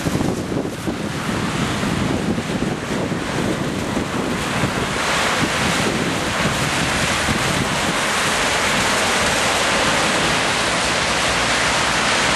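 Wind buffeting the microphone over a steady hiss of rain and car traffic on wet streets; the hiss becomes steadier and brighter about five seconds in.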